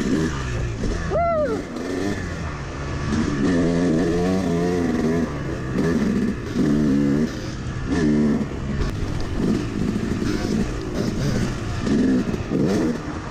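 Yamaha 250 two-stroke dirt bike engine under way, over a steady low rumble, revving up and down in short throttle blips roughly every second.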